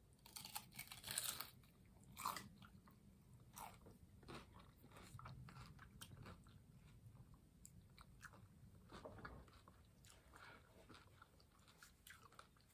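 Faint sounds of a person biting and chewing food close to the microphone, in scattered short bursts that are busiest in the first few seconds and again a little past the middle.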